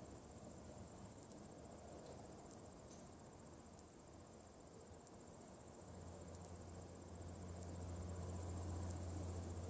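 A faint, unexplained low hum in the sky that swells and grows louder about six seconds in, over a steady high-pitched pulsing trill.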